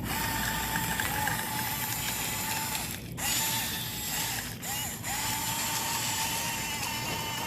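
Huina radio-controlled excavator's small electric motors and plastic gearboxes whining and grinding as it works, the whine dropping out briefly a few times and spinning back up.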